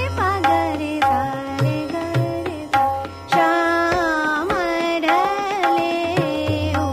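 Hindustani classical music in Raag Hansdhwani: a melodic line of quick, gliding, ornamented runs over tabla accompaniment and a steady low drone.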